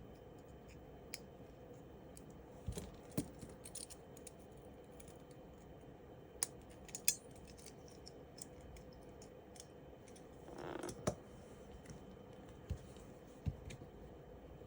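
Scattered clicks and taps of small Glock pistol frame parts being handled and fitted together, with a short scrape a little after ten seconds in.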